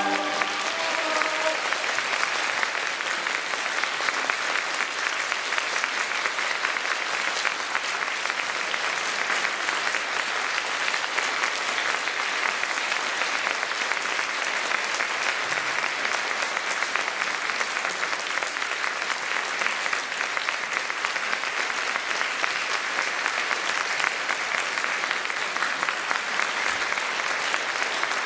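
A large audience applauding steadily and at length, with the choir's last sung chord fading out in the first second or so.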